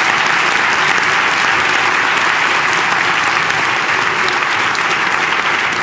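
Large audience applauding, many hands clapping loudly and steadily.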